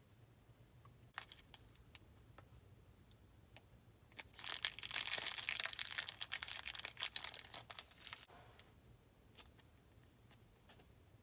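Hands squishing and stretching clear glitter slime, giving a few faint isolated pops and then about four seconds of dense crackling and popping in the middle.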